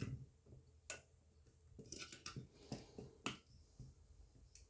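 Light plastic clicks and taps as a small circuit board is handled and pressed into the spring-loaded jaws of a plastic PCB holder: a handful of separate sharp clicks, a few bunched together about two seconds in.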